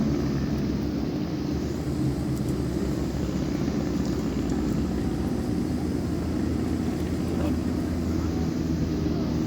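An engine running steadily with an even drone, holding the same pitch.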